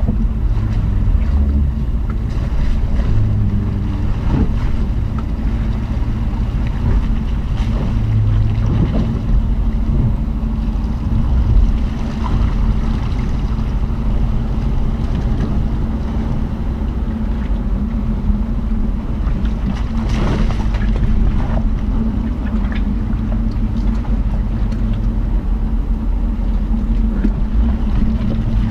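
Jeep Cherokee Trailhawk's engine running at a steady low drone while driving a rough off-road trail, with a few short knocks.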